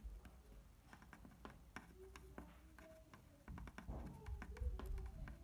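Faint scattered small ticks and taps of hand soldering on a circuit board, with low rumbling handling noise from a hand-held phone coming in about three and a half seconds in.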